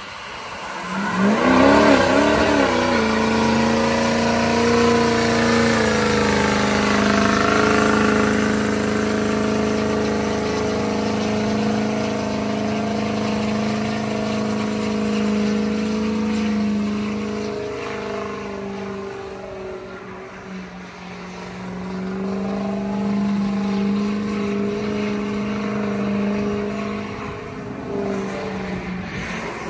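Diesel Ford Super Duty pickup doing a burnout: the engine revs up in a few rising pulls, then is held at high, steady revs while the rear tyres spin and smoke. It eases off briefly about twenty seconds in before climbing again.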